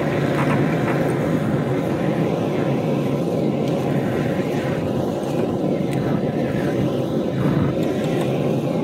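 Gas hand torch burning with a steady, loud rushing noise as its flame heats a soldered copper reducer fitting to melt the solder so the fitting can be pulled off.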